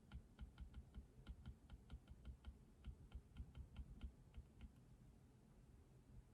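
Faint typing on a computer keyboard: a quick run of key clicks, about five a second, that stops a little under five seconds in.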